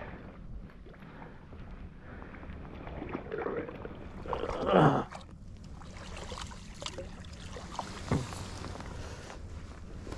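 Wind rumbling on the microphone, with a short, loud voice-like sound falling in pitch a little under halfway through and a sharp click near the end.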